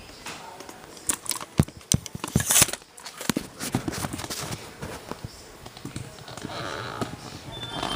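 Irregular sharp plastic clicks and knocks, densest in the first half: a VHS tape and its case being handled and opened.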